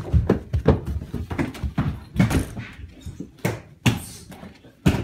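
Several people running up carpeted stairs: a quick, irregular string of footfall thuds, with a louder thump near the end.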